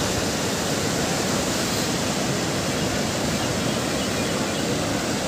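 Steady, even rush of fast-flowing river water.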